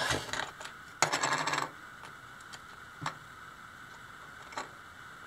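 Small hard plastic clicks and rattles from a 3D-printed ratchet and its spring pawls being pushed into and turned inside a plastic gear: a short clatter at the start, a longer rattling burst about a second in, then two single clicks.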